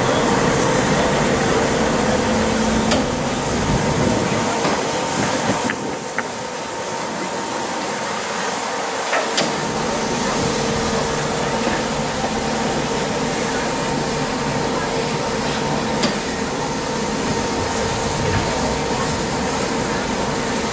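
Steady mechanical hum and whine from a standing locomotive at a station platform, with a low rumble and a few faint clicks. Background voices are mixed in.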